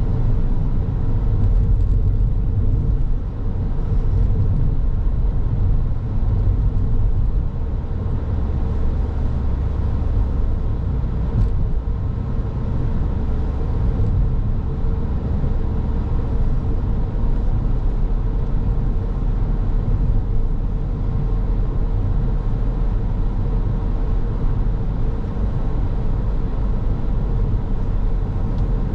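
Car driving steadily on the road: a continuous low rumble of tyres and engine, with a faint steady hum above it.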